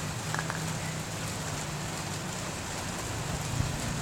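Steady rain falling, an even hiss with no break, with a couple of faint clicks about half a second in.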